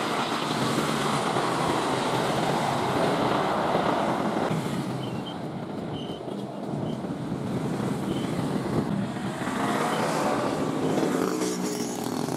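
Jet airliner engines heard from the airport perimeter: a steady rushing noise that dips a little in the middle, with faint gliding engine whine near the end.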